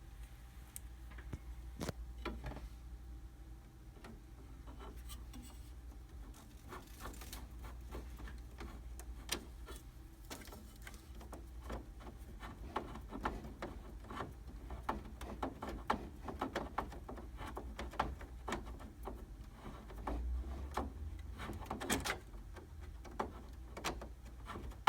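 Repeated small clicks, taps and rattles of plastic and metal printer parts being handled and fitted together as the sensor bar is put back onto its metal plate, over a low steady hum.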